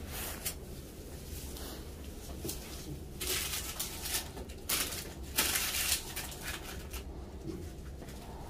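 Rustling and scratchy handling of a gauze bandage as it is wrapped around a hand, with three or four louder rustles in the middle.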